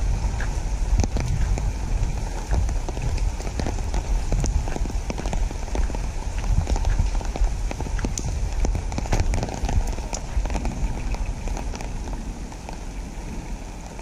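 Rain falling on wet pavement and foliage, a steady hiss full of close raindrop ticks over a low rumble, getting quieter over the last few seconds.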